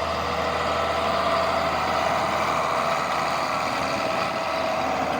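A heavy tractor engine idling steadily, with an even low hum and no change in speed.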